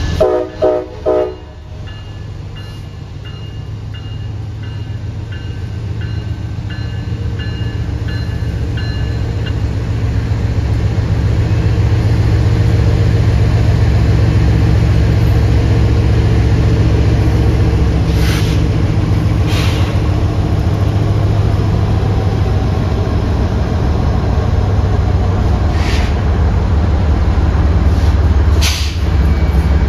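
A diesel freight train, with a steady low locomotive rumble that builds over the first dozen seconds and then holds. A few short horn-like blasts come right at the start, a faint ding repeats about twice a second for several seconds, and a handful of brief sharp hissing or clanking bursts come later on.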